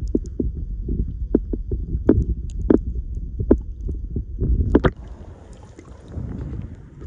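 Underwater audio from a camera submerged in a rocky saltwater tide pool: a muffled, low sloshing rumble broken by a dozen or so sharp clicks and knocks. About five seconds in the rumble drops away and a quieter, thinner hiss follows.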